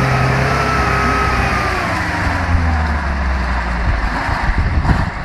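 Off-road vehicle engine running under load, its pitch easing down over the first three seconds, then giving way to uneven rumbling noise near the end.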